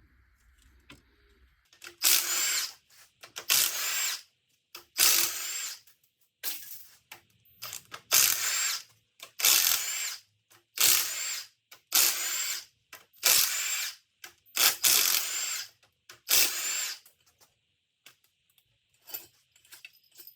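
A power tool spinning out the cylinder head bolts of a 6.0 L LQ9 V8. It runs in about ten short bursts, each under a second, with brief pauses between them, then stops near the end.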